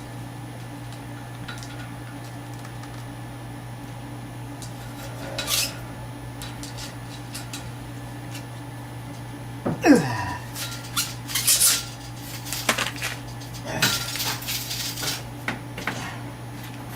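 Metal clinks, scrapes and rattles of 3/8-inch copper oil-line tubing being handled and fed into place, scattered through the second half, with a short squeal sliding down in pitch about ten seconds in. A steady low hum lies underneath.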